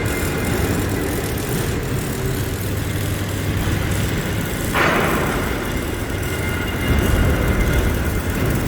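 Steady, loud rumbling of heavy machinery, with a short hissing burst about five seconds in and the rumble growing louder near the end.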